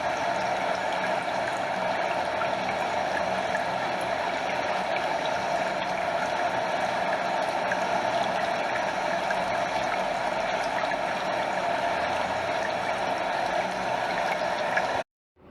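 Stream water running steadily over a small waterfall, an even rushing sound. It cuts out abruptly near the end.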